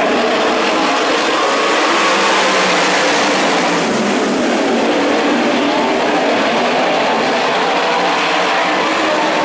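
A pack of winged sprint cars racing around a dirt oval, many engines running hard together in a loud, steady din.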